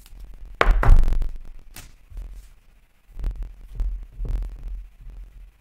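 Trading cards being handled close to the microphone: low thumps and clicks, the loudest about a second in, with more thumps between about three and four and a half seconds.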